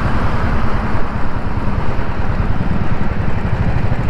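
Royal Enfield motorcycle riding at speed, its engine running steadily under a constant rumble of wind and road noise on the bike-mounted camera.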